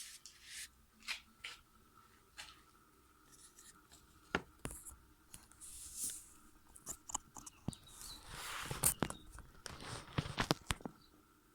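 Scattered small clicks, taps and scraping of a removed motorcycle rear brake caliper and its pads being handled, with a longer scrape about eight seconds in.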